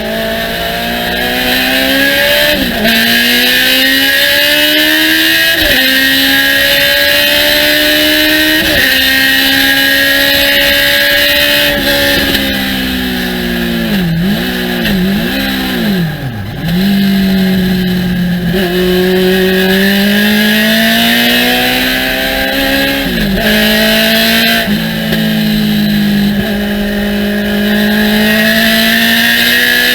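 Race car engine pulling hard through the gears: the pitch climbs steadily, then drops sharply at each upshift, about every three seconds. Around the middle it swoops down and up several times in quick succession, as it does under braking with downshifts, before climbing again. A steady hiss of wind and tyre noise runs under it.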